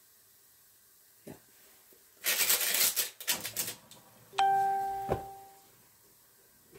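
A burst of rustling and clattering, then a single clear ding that rings out and fades over about a second and a half, with a click near its end.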